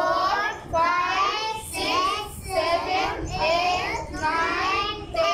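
Young children's voices singing in short phrases about a second apart.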